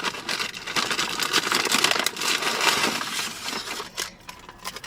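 Paper fast-food packaging being handled, a continuous rustling and crinkling with small clicks that eases off near the end.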